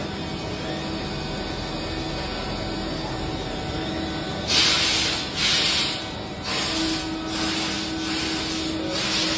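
CNC machine tool running with a steady hum. From about halfway comes a series of short, loud hissing bursts, roughly one a second.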